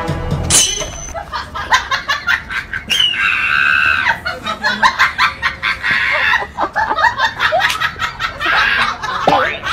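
Rapid, high cackling and clucking sounds mixed with laughter.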